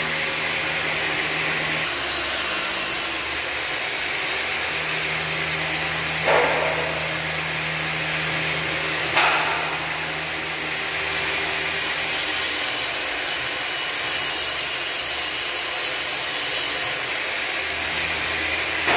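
Steady, loud whooshing hiss, like a blower running, with a faint high whine and a low hum over it. Two brief knocks come about six and nine seconds in.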